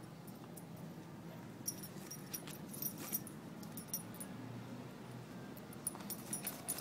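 A dog's metal collar tags jingling in short clusters of clinks as she roots with her nose in gravel and dirt, over a low scuffling background. The jingling comes in two spells, the first starting a little under two seconds in and the second near the end.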